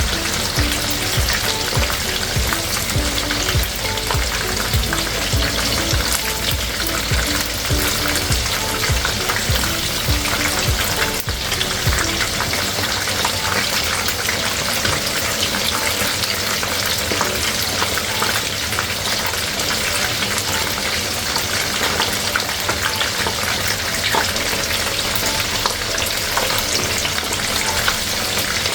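Rice-flour-battered chicken wings deep-frying in hot oil: a steady, dense crackling sizzle. A low rumble underneath stops about twelve seconds in.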